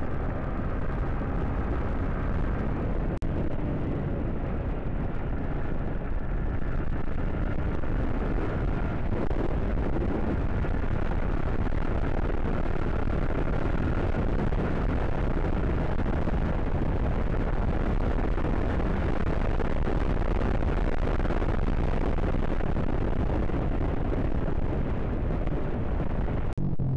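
Wind buffeting the microphone of a moving motorcycle as a steady roar, with the engine running faintly underneath.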